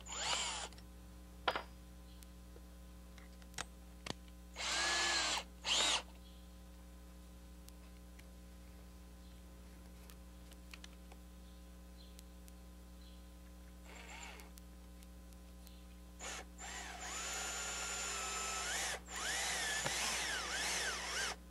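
Cordless drill running in short bursts as it widens the screw-head hole in the wooden rocker, then a longer run of several seconds near the end as it drives a wood screw into the rocker. The motor's whine holds steady at first and then wavers in pitch under load.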